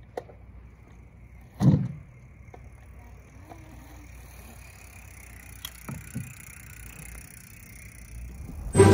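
Quiet outdoor background with one loud, dull thump about two seconds in and a few faint knocks later on. Music starts right at the end.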